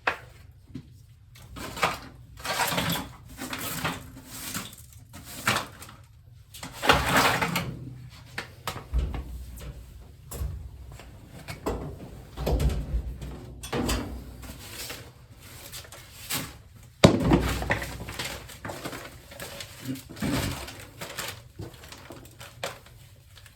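Irregular knocks, scrapes and rustling of someone moving about and handling equipment, with one sharp bang about seventeen seconds in.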